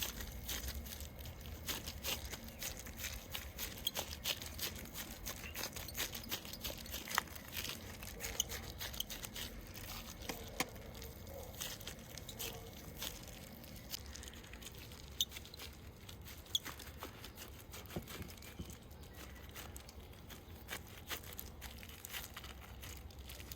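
Hands pressing and shaping seasoned minced beef onto a kebab skewer: soft wet pats and irregular small clicks throughout.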